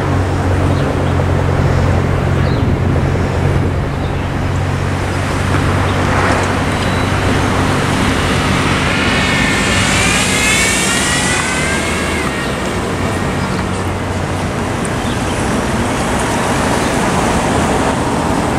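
Road traffic moving over a railroad crossing: cars driving across the tracks, with a steady low engine hum that weakens about four seconds in. A vehicle passes close about ten seconds in with a wavering whine and tyre hiss.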